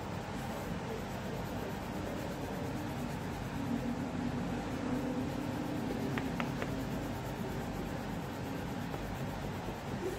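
Coloured pencil scratching steadily across paper as an area of the drawing is shaded in, with three quick clicks a little past the middle.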